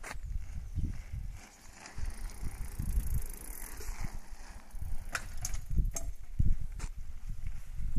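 Mountain bike riding over brick paving, its tyres giving an uneven low rumble, with three sharp knocks about five, six and seven seconds in.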